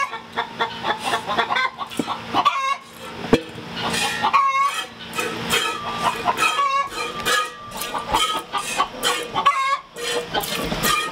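Chickens clucking repeatedly, short calls one after another, with sharp squirts of milk hitting a stainless steel pail as a dairy goat is milked by hand.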